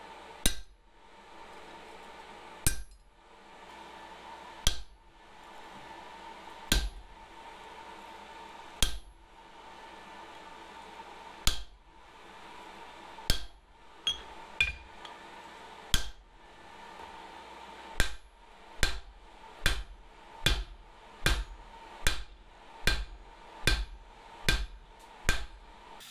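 Hand hammer striking hot leaf-spring steel on an anvil, drawing out a forged garden trowel: single sharp blows with a short ring, about one every two seconds at first, quickening to roughly one a second from about two-thirds of the way in, over a faint steady hum.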